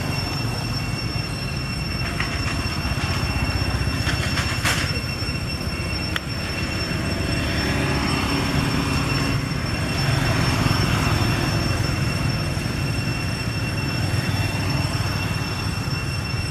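Steady roadside background noise: a low rumble of traffic with a thin, unchanging high whine over it, and a few faint clicks about four to six seconds in.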